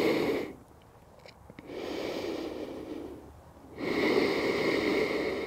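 A woman breathing heavily and audibly close to the microphone as she recovers after a held back bend. The tail of one breath ends about half a second in, then come two long breaths, the last the loudest.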